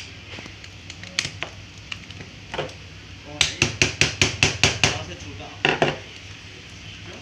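Hard plastic taps and clicks on a Samsung 101 toner cartridge during refilling. A few scattered small clicks come first. About three and a half seconds in there is a quick run of about nine sharp taps, roughly six a second, then two more knocks a moment later.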